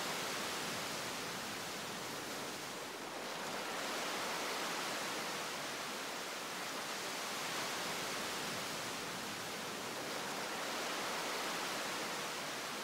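Steady, even hiss-like rushing noise with slow, gentle swells in level.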